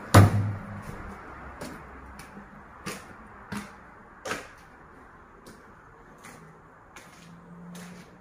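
A single loud, sharp knock right at the start, followed by a series of lighter scattered clicks and knocks, about eight of them, over the next several seconds.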